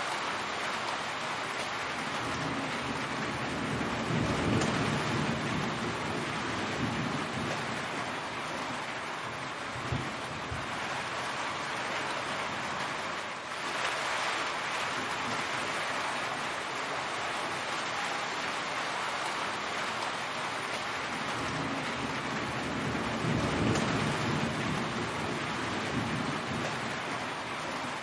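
Heavy rain falling steadily in a dense, even hiss, running off a corrugated roof edge. A low rumble swells up twice, about four seconds in and again near the end, and there is a single sharp tap about ten seconds in.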